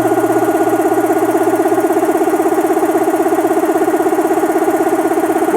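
Compressor on a PLINT test rig running at about 500 RPM, with a loud, rapid and even pulsing hum. It is working against a closed valve to build the pressure up towards 3 bar.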